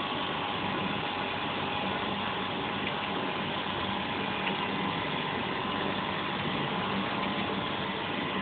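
Steady machine hum with a constant tone that does not change, with a few faint clicks.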